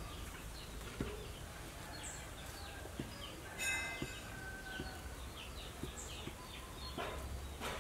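Background birdsong: small birds chirping over and over in short, quick downward notes, with one louder, drawn-out call about three and a half seconds in. A few faint soft knocks run underneath.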